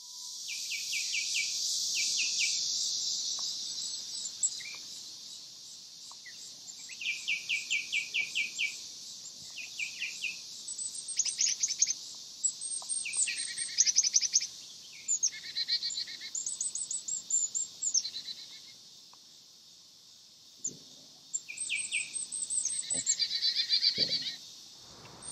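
Outdoor birds calling and singing over a steady, high-pitched insect drone. The drone swells over the first few seconds and then fades. The bird sounds are many short chirps and fast runs of repeated notes.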